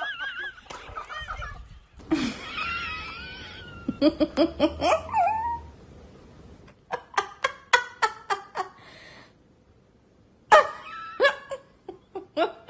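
People laughing in several bursts of quick, pulsing laughs: about four seconds in, again from about seven to nine seconds, and once more near the end, with wavering voices between them.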